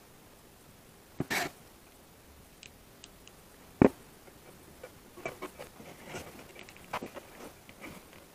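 Handling noises on a workbench: a brief rustle, one sharp knock, then a run of light clicks and rustles as parts are handled.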